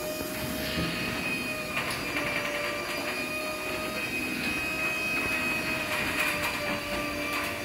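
Wiśniowski sectional garage door closing under its MIDO 600 electric operator: a steady motor whine over the rumble of the door panels rolling down their tracks.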